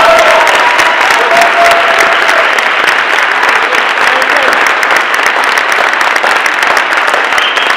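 Large audience applauding loudly and steadily, a standing ovation, with a few voices calling out over the clapping in the first few seconds.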